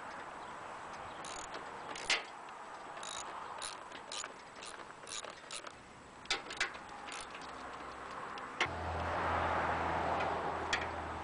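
Half-inch ratchet clicking in irregular strokes as the seat-pan bolts are turned. About three quarters of the way in, a steady low hum starts abruptly and runs on.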